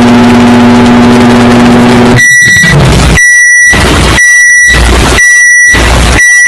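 Microwave oven running with a steady hum that stops about two seconds in. It then beeps five times at one high pitch, about once a second, like a microwave's end-of-cycle alert. The sound is very loud and distorted.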